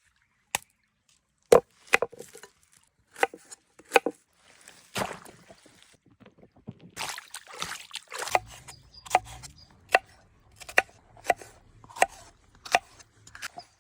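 Knife chopping food on a wooden cutting board: a few scattered knocks at first, then a steady run of chops about two a second in the second half.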